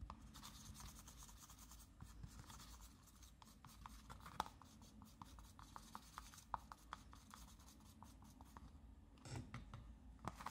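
Paintbrush faintly scraping and rubbing thick red gouache mixed with PVA glue on a plastic palette, with many small ticks. The paint is being ground smooth to get rid of lumps.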